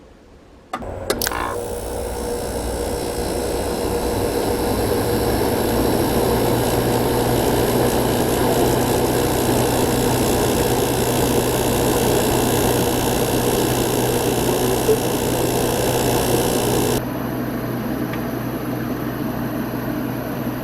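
A 1988 Sears Kenmore 6000 BTU window air conditioner starting in power-saver mode: a click, then the compressor kicks on with a steady hum and a rushing hiss, and the R22 refrigerant is flowing. About seventeen seconds in, the hiss abruptly drops away while the hum carries on.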